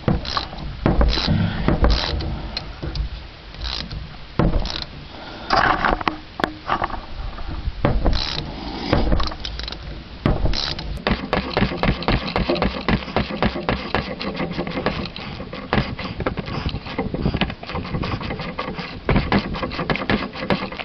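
Metal hand tools and suspension parts being handled: irregular knocks and scrapes, then from about halfway a long run of quick, closely spaced clicks and rattles.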